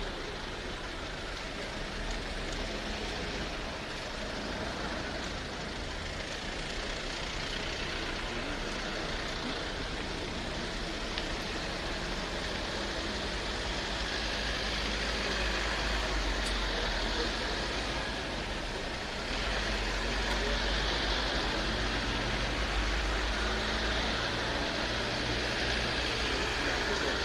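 A convoy of police vehicles, Isuzu D-Max pickups and SUVs, driving slowly past: a steady wash of engine and tyre noise that grows a little louder about two-thirds of the way through.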